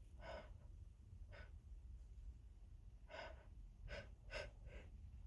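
A person's faint breathing: about six short, catching breaths spread over a few seconds.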